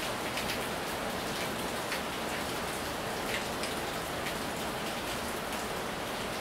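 Heavy rain pouring steadily onto a wet tiled porch and the ground beyond, with scattered close drops landing as sharp splashes.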